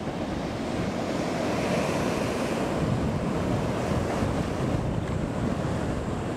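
Ocean surf breaking on a rocky reef, a steady rush of water, with wind buffeting the microphone.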